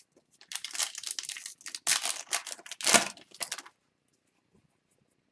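Foil wrapper of a hockey card pack crinkling and tearing as it is handled and ripped open, a dense rustle that stops about two-thirds of the way through.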